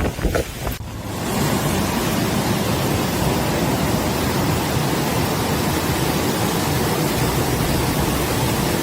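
Fast floodwater rushing in a steady, even torrent, cutting in about a second in after a brief break.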